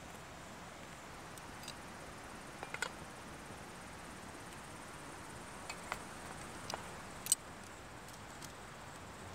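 Faint steady hiss with a few scattered light clicks and taps, the loudest near the end.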